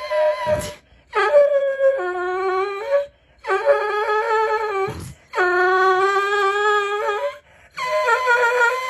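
A dog howling in a run of long, drawn-out howls. Each lasts one to two seconds, with short breaths between, and the pitch wavers up and down.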